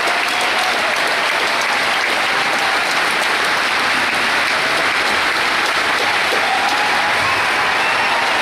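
A large audience applauding: dense, steady clapping that keeps going without a break.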